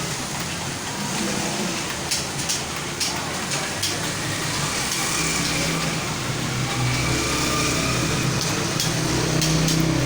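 Computer keyboard keys clicking as someone types, heard as scattered light taps over a steady low engine rumble, like road traffic or a motor running.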